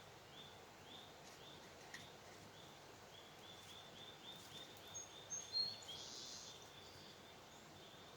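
Faint outdoor ambience with a small bird chirping over and over, the chirps coming faster from about three seconds in. A few higher, thinner bird calls join a little past halfway, over a steady low background hiss.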